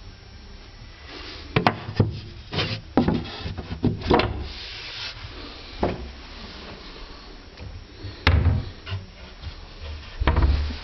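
Taps, knocks and rubbing on unpainted MDF cupboard panels as the cupboard is handled, most of them between about one and four seconds in. Near the end comes a heavy low thump as a panelled cupboard door is swung.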